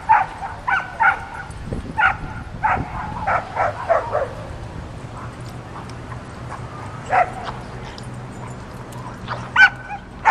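A dog barking in short, sharp barks that come in quick runs: about a dozen over the first four seconds, a single bark around seven seconds and a short burst of barks near the end.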